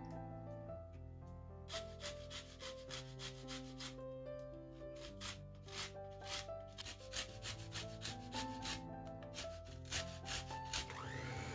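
Soft instrumental music over a run of evenly spaced scraping strokes from a knife working butter, sugar and egg in a ceramic bowl. Near the end an electric hand mixer starts with a rising whir.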